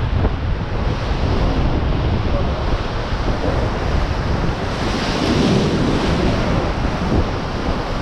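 Rushing whitewater of the Ganges rapids, with wind buffeting the microphone. A louder rush of splashing water comes about five seconds in.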